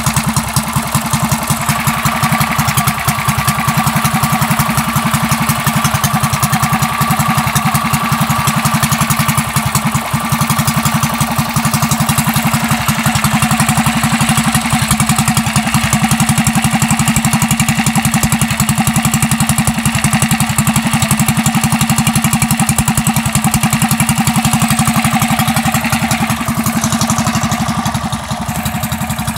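Coleman CT100U mini bike's single-cylinder engine idling steadily through an aftermarket header pipe and pod air filter, with a throaty exhaust note. The level dips slightly near the end.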